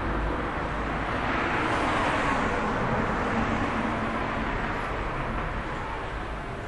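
A vehicle passing by: a broad rushing noise that swells to its loudest about two seconds in, then slowly fades away.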